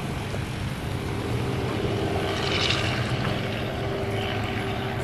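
Demolition derby car engines running in the inspection line, a steady low drone.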